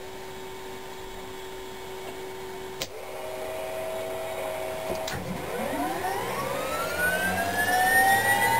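FH1100 helicopter's Allison 250 turboshaft engine being started: a steady hum with a couple of sharp clicks, then about five seconds in the turbine whine begins and climbs steadily in pitch, growing louder as the engine spools up.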